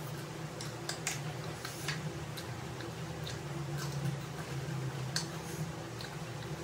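Close-up eating sounds: wet chewing, lip smacks and small mouth clicks as two people eat chicken and leaf wraps, over a steady low hum.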